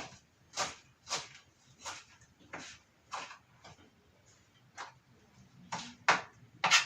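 Knife chopping fresh coriander: a series of sharp, short strokes on the board, about two a second, with a pause about halfway through before a few more cuts.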